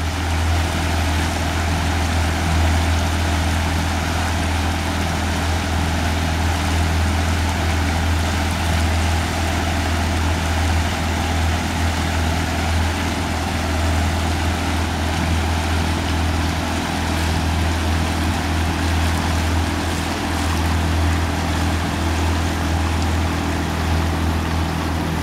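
Pontoon boat's outboard motor running steadily at slow cruising speed, a constant low hum, with an even hiss of water moving past the boat.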